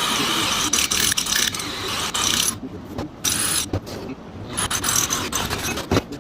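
Mechanical clicking and rattling over a steady hiss. The hiss drops away about two and a half seconds in, leaving scattered clicks and knocks.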